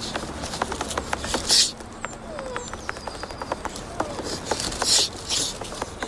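A puppy whimpering, with a short falling whine about two seconds in, among many quick light taps and two loud hissing rushes, about a second and a half and five seconds in.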